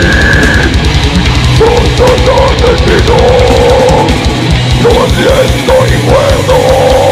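Heavy metal band playing live, loud and steady: distorted guitar and drums, with a run of fast, even kick-drum strokes from about four seconds in.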